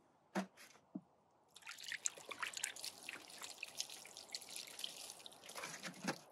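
Two light knocks, then from about a second and a half in, water splashing and dribbling as a freshly gutted rainbow trout is rinsed clean by hand.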